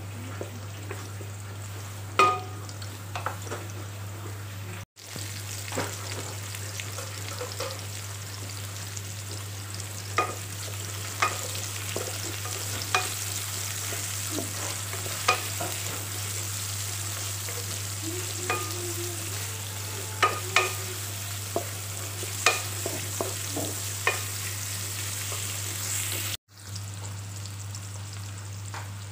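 Chopped garlic and sliced red onion sizzling in oil in a wok, stirred and scraped with a wooden spatula that clicks against the pan now and then, over a steady low hum. The sound cuts out briefly twice.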